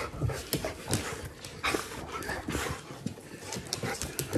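Excited huskies panting and scuffling right up against the microphone, with breathy huffs, fur rubbing and scattered sharp clicks.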